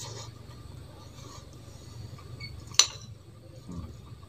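Metal spoon clinking once, sharply, against a plate about three seconds in, with faint small ticks of the spoon scooping rice and fried egg.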